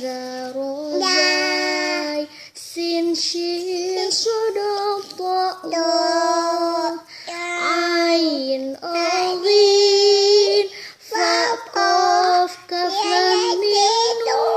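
A young child singing solo, a melody of long held notes with slides between them, in phrases separated by short breaths.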